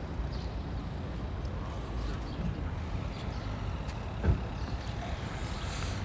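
Street traffic ambience: a steady low rumble of passing cars, with one brief thump about four seconds in.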